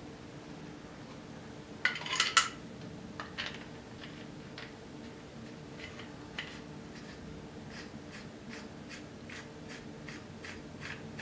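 Small metal clicks and clinks from hand-assembling an adjustable camber arm and its rod end: a brief clatter of metal parts about two seconds in, the loudest moment, then scattered light clicks that become evenly spaced, about three a second, near the end. A low steady hum runs underneath.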